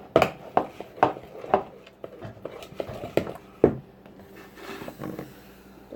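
Irregular sharp clicks and taps from slime being worked by hand and in a bowl, several in quick succession at first, then sparser.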